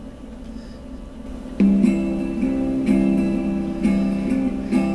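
Low room hum, then about a second and a half in a strummed guitar starts the intro of a song, with new chords struck about once a second.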